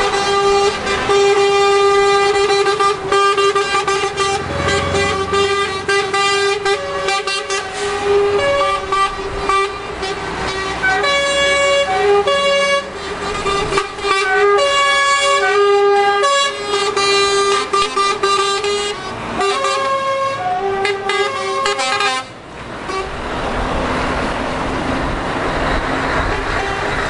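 Truck air horns sounding almost without a break: a low note held steady, with higher notes stepping on and off over it like a tune. About twenty-two seconds in, the horns stop and the sound of passing trucks' engines and tyres is left.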